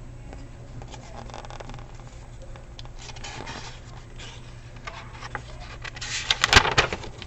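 Paper rustling and handling of a picture book as its pages are turned, with the loudest rustles and clicks about six seconds in, over a faint steady hum.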